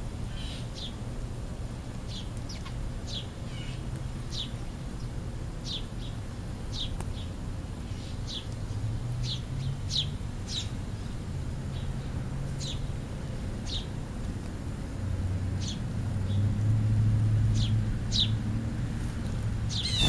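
House sparrows chirping, short single chirps about once a second. A low rumble swells for a few seconds near the end, and a sharp knock comes at the very end.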